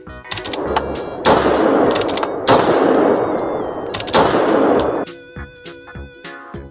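Three loud gunshot blasts, each fading over about a second, with a smaller shot just before them, over light background music.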